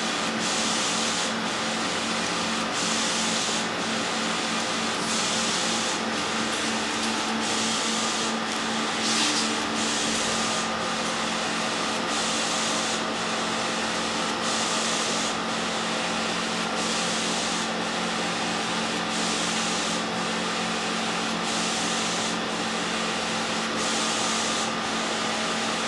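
Wide-format inkjet printer printing: the print-head carriage sweeps back and forth across the sheet with a hiss that swells and fades about once every second and a quarter, over a steady hum.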